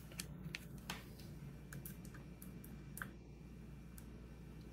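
Faint, scattered light clicks and taps as multimeter test probes and leads are handled and touched to a sealed lead-acid battery's terminal lugs, over a low steady hum.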